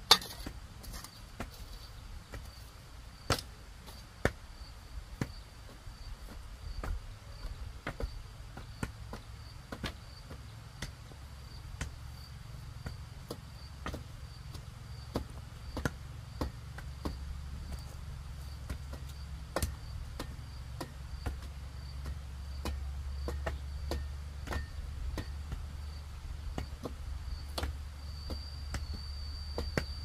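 Irregular dull knocks of a wooden pole tamping earth around bamboo posts, with a shovel working the soil, about one to two strikes a second, the sharpest right at the start. Insects trill in a steady high tone throughout.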